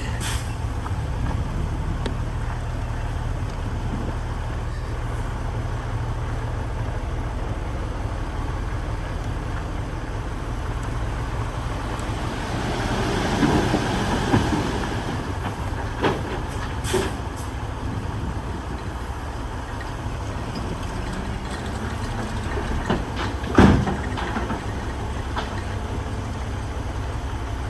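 Heavy construction machinery engine running steadily, with a louder stretch of rattling near the middle and several sharp clanks; the loudest clank comes about two-thirds of the way through.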